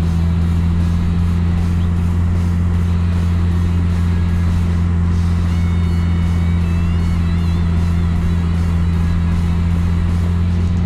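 Car driving at a steady speed: an unbroken low drone of engine and road noise over a steady hiss.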